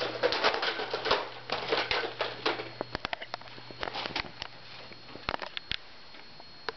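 Handling noise from a large plastic Nerf Mega Centurion blaster being swung and moved about: a busy run of rattling clicks and rustles for about three seconds, then only scattered clicks.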